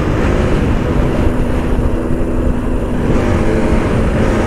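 Motorcycle engine running steadily while riding, with heavy wind rumble on the microphone.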